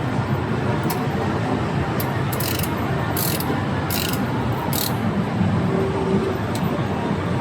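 Mechanical ratcheting and rattling, in four short bursts between about two and five seconds in, over a steady background din.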